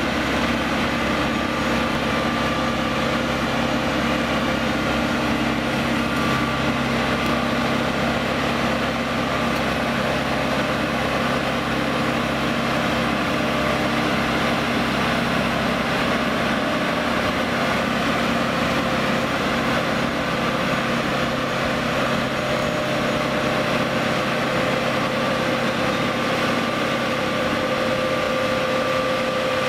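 Engine of a Plasser & Theurer APT 1500 RA rail welding machine running steadily: an even mechanical hum with several held tones, the deepest part dropping away about halfway through.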